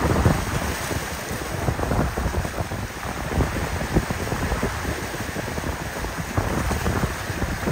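Wind buffeting the microphone unevenly, over the wash of water from a passing motor yacht's wake.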